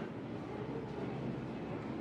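Steady rumbling background noise with no distinct clicks, cracks or voices.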